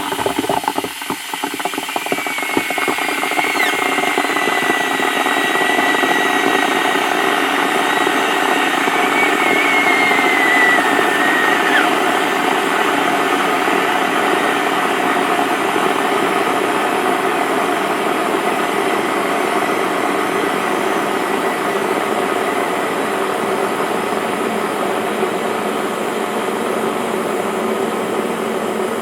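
Kettle coming to a full boil: a loud, steady rushing and rumbling of boiling water and steam that swells over the first few seconds and then holds. A thin, wavering whistle tone comes and goes during the first dozen seconds.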